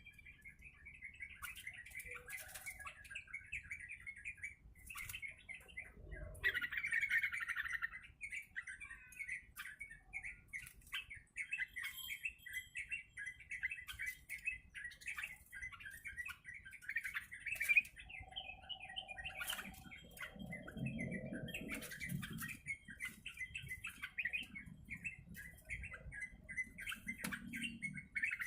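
Yellow-vented bulbul (trucuk) chirping and chattering continuously in quick, busy notes, with a louder burst about a quarter of the way through. Scattered sharp clicks and a short low rumbling stretch about two-thirds of the way through.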